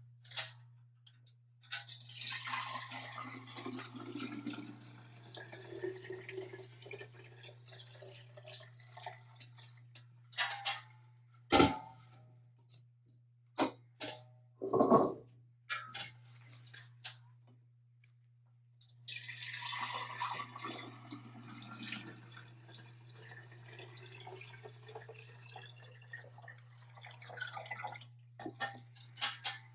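Running water in two spells of several seconds each, with sharp knocks and clinks between them.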